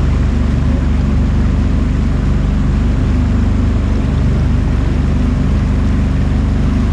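Sea-Doo personal watercraft engine running steadily: a low, even drone with a constant hiss over it.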